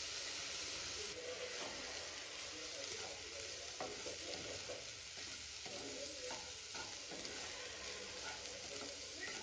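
Fried rice sizzling in a nonstick frying pan as a slotted wooden spatula stirs it, with irregular scraping and knocking of the spatula against the pan starting about a second in.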